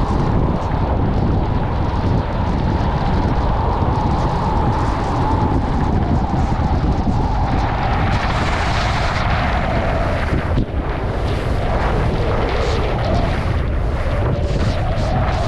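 Heavy wind buffeting an action camera's microphone at about 50–60 km/h on a ski descent, over the hiss and scrape of skis on snow. The scraping grows louder and rougher from about halfway through, as the skis cross choppy, tracked-out snow.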